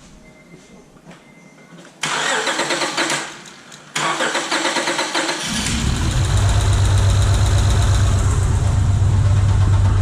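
A 2005 Acura TL's 3.2-litre V6 is cranked on the starter, dips, cranks again and catches about five and a half seconds in. It then idles roughly with a dead miss, a misfiring cylinder (cylinder 4) after a broken timing belt was replaced.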